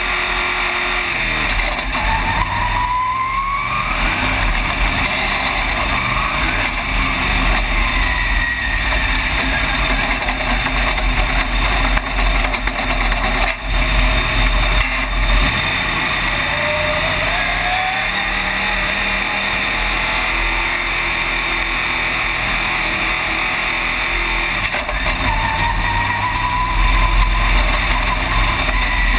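Race car engine at racing speed, heard from inside the cockpit: loud and continuous, the revs climbing in rising whines about a second in, around the middle and again near the end, and easing off in between as the car goes through the turns.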